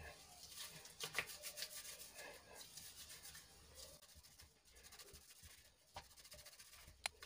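Faint soft rubbing and squishing of oiled chickpea-flour dough being worked and smoothed between the hands, with a light click near the end.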